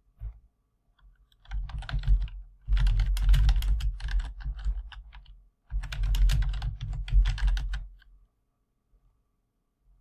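Computer keyboard typing in three quick runs of keystrokes with short pauses between them, stopping about two seconds before the end.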